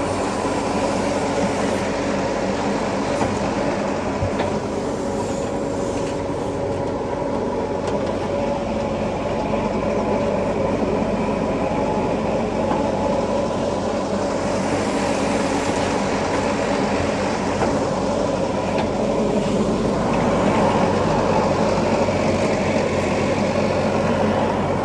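Heavy diesel engine of earthmoving machinery running steadily, a constant drone, getting a little louder near the end.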